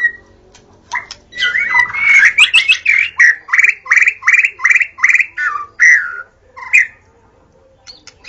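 White-rumped shama singing: a run of loud whistled phrases, with a stretch of about seven repeated slurred notes at roughly three a second in the middle. The song breaks off after a few last notes near the end.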